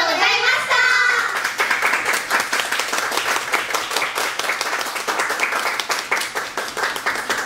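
Audience clapping in applause, many claps overlapping, after a voice that stops about a second in.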